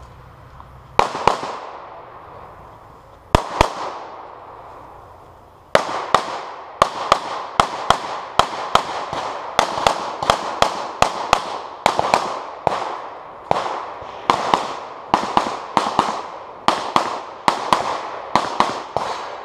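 Pistol shots from a competition stage run. There are two shots about a second in and two more about three and a half seconds in, then a steady string of quick pairs of shots from about six seconds on. Each shot rings out in a short echo.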